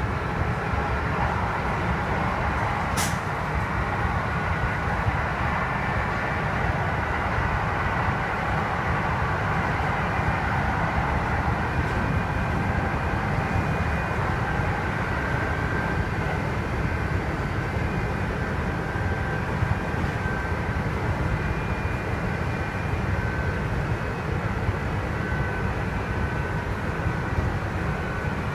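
Kintetsu 2610-series electric train, set X25, running between stations, heard from on board: a steady low rumble mixed with faint high whining tones that come and go. The uploader takes this mix of high and low tones for an abnormal running noise on this set. A single sharp click about three seconds in.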